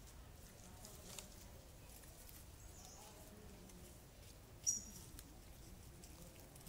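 Faint forest ambience with light rustling, and one short, high-pitched animal chirp about two-thirds of the way through.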